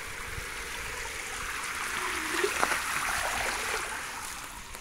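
Spray of water falling on a clay pot and wet concrete ground: a steady splashing hiss that swells a little in the middle, with a few drops ticking sharply.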